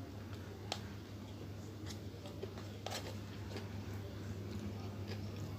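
Mukbang eating sounds: a handful of short sharp clicks and crunches from chewing and handling the food, over a steady low hum.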